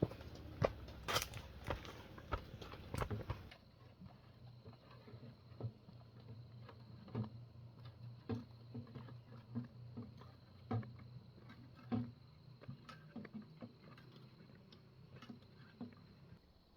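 Irregular knocks and clicks, as of things being handled and set down, denser and louder in the first three and a half seconds, then sparser over a steady low hum.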